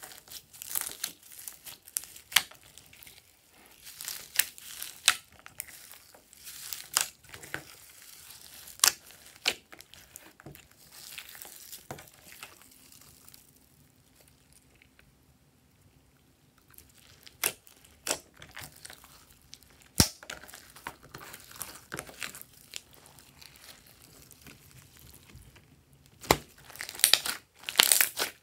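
Hands kneading and squishing glossy slime mixed with foam beads and tinsel: sticky crackling and many sharp popping clicks. It goes quieter for a few seconds in the middle while the slime is pulled up and stretched, and near the end comes a dense run of loud pops as the slime is squeezed.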